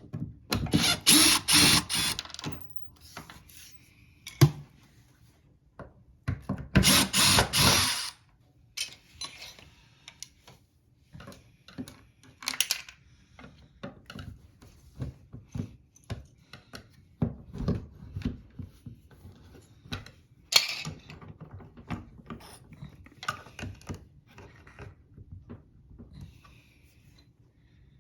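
Two short runs of a power drill or driver, presumably driving screws for the fridge door's self-closing mechanism, one about a second in and one about six seconds in. Between and after them come scattered clicks, taps and knocks of parts and tools being handled.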